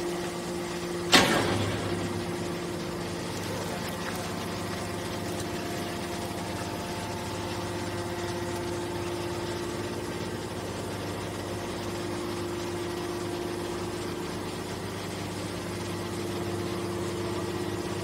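Hydraulic power unit of a horizontal scrap-metal baler running with a steady hum and whine while its ram pushes a compressed bale out of the discharge opening. There is a single sharp bang about a second in, the loudest sound here.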